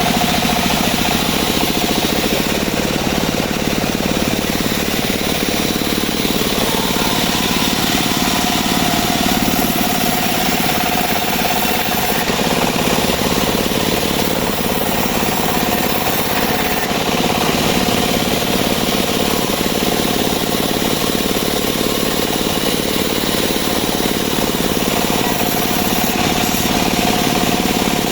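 Engine of a homemade portable bandsaw sawmill running steadily at speed, with a constant high whine over rapid engine pulsing.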